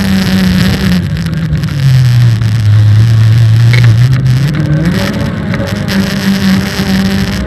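Autocross car's engine running hard, easing off about two seconds in to lower revs for a couple of seconds, then revving back up to its earlier pitch as it accelerates again, over a steady rush of wind and tyre noise.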